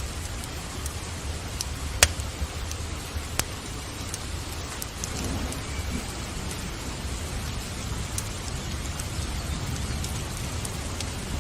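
Steady rain with sharp crackles and pops from a wood fire in a fireplace, the loudest pop about two seconds in. A soft low rumble of distant thunder swells near the middle.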